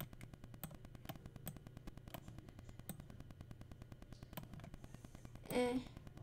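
Faint computer mouse clicks, about half a dozen at uneven spacing, over a low steady hum. Near the end there is a brief voiced hum or murmur.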